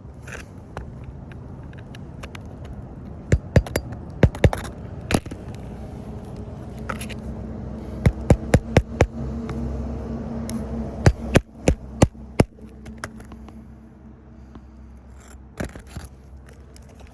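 Hammer driving roofing nails into old asphalt shingles, in short groups of sharp strikes with pauses between, as the shingles are reset and nailed back into their old holes.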